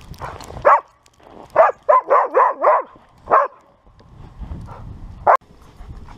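Dog barking in play: short, sharp barks, with one bark, a quick run of about five, another, and a last single bark near the end.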